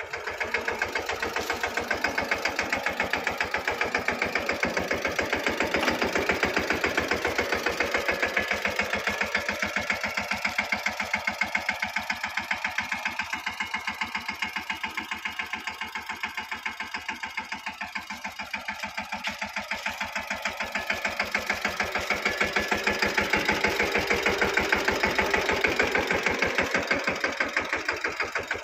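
Mahindra Yuvraj mini tractor's single-cylinder diesel engine running steadily with a fast, even beat, growing a little quieter in the middle and louder again near the end. It is powering the homemade rig that hauls the submersible pump out of the borewell.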